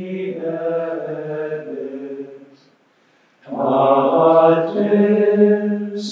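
Male voices singing a slow sacred chant with long held notes; it breaks off for a breath about two and a half seconds in, then resumes louder.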